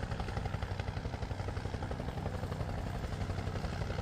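Bell 222 helicopter flying in, its two-bladed main rotor beating in a fast, even chop over the engine noise.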